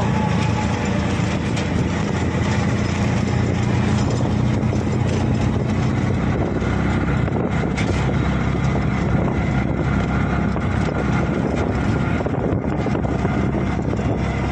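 Steady engine and road noise of a small passenger vehicle under way, heard from inside its cab.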